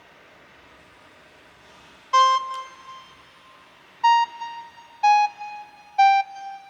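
Music playing back through the Sony MZ-B10 MiniDisc player's built-in speakers: after a short pause, four struck, ringing notes about a second apart, each a little lower than the last.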